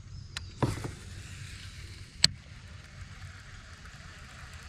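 Handling noises in a fishing kayak: a short knock a little over half a second in and a single sharp click about two seconds in, over a steady faint outdoor background.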